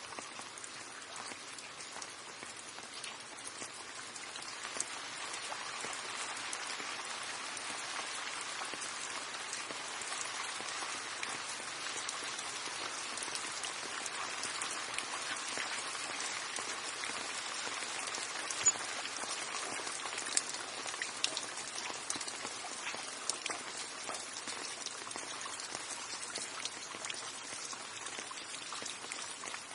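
Steady rain falling, with many individual drops ticking on a surface and a few louder single drops standing out.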